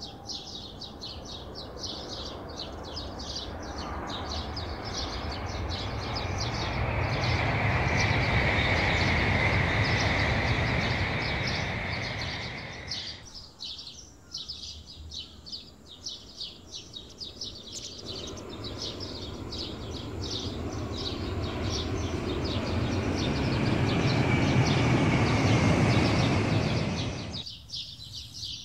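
Shinkansen bullet trains passing at speed, twice: a rushing noise swells to a peak with a high whine and is cut off sharply about halfway through, then a second pass-by builds and is cut off near the end. Rapid high chirping goes on behind.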